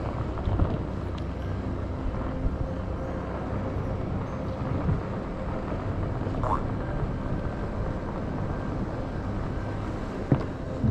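Off-road Segway rolling steadily over paving: a constant ride and tyre noise with a faint steady hum, and a couple of short knocks near the end.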